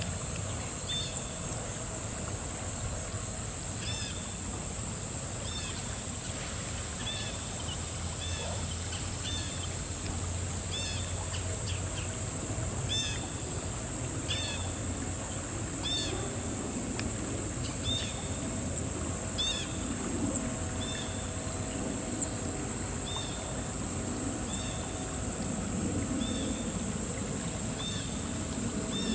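Killdeer giving short, high, repeated calls about once a second, over a steady high insect drone and the low noise of river water.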